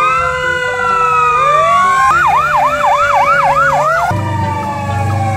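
Fire engine sirens, several tones overlapping. They start in a slow rising and falling wail, switch to a fast yelp of about three cycles a second about two seconds in, and fall back to a slow wail. A low engine rumble joins near the end.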